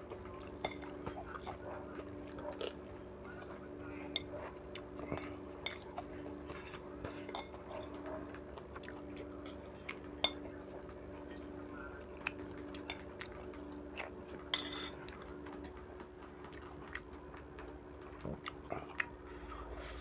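A metal spoon clinking and tapping against ceramic bowls and a plate while eating noodle soup, with small mouth sounds of eating, over a steady low hum that fades about three-quarters of the way through.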